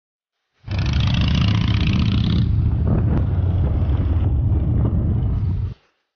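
Motorcycle engine running with a steady low rumble while riding on the road, with wind hiss over the first couple of seconds. The sound starts abruptly about half a second in and cuts off suddenly near the end.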